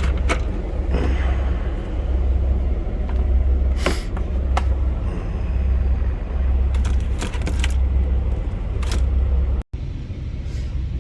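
Low steady rumble of an idling truck engine, with scattered clicks and knocks over it; the sound cuts out for a moment near the end and comes back a little quieter.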